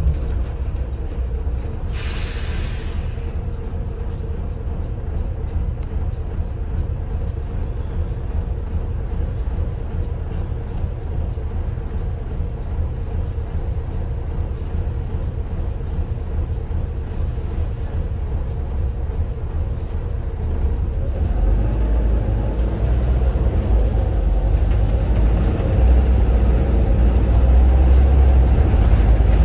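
Volvo B7RLE single-decker bus's six-cylinder diesel heard from inside the saloon, running with a steady low rumble. About two seconds in there is a short hiss of released air from the air brakes. From about twenty seconds in the engine grows louder and its note rises as the bus pulls away.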